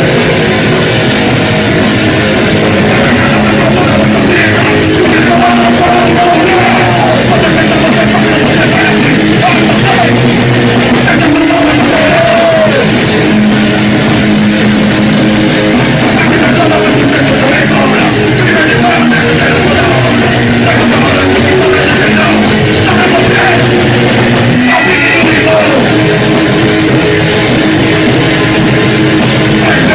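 A punk rock band playing live and loud, with distorted electric guitar and drums.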